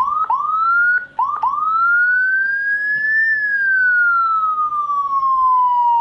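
Whelen HF 60-watt electronic siren sounding its wail tone through a horn speaker: four short rising chirps in the first second and a half, then one long rise in pitch that peaks about halfway and slowly falls away.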